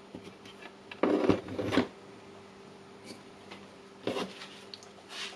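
Handling noise as a wire is worked into a power-tool charger's terminal: two longer rubbing scrapes, the first about a second in and the louder one, plus a shorter one near the end, with small clicks between them over a faint steady hum.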